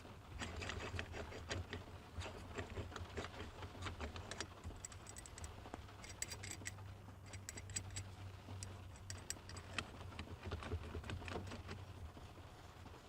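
Many small irregular clicks and rattles from a threaded shift knob being handled and twisted onto an extended short shifter, over a steady low hum.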